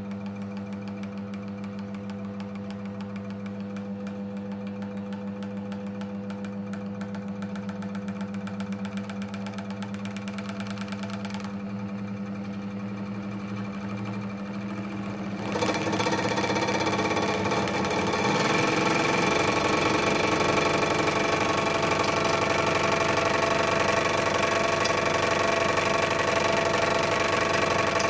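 Scroll saw converted into a paint shaker, running with a Vallejo Model Air paint bottle rubber-banded to its blade clamp: a steady motor hum with the rattle of the reciprocating arm. About fifteen seconds in it becomes louder and rougher as the bottle is shaken faster.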